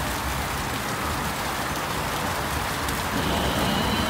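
Steady rushing splash of running water from a rock water feature, with a faint thin high tone joining about three seconds in.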